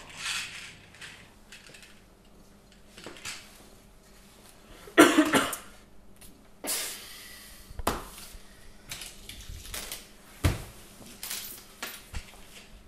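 A person coughing, once loudly about five seconds in, among scattered clinks, knocks and rustles of small objects being handled.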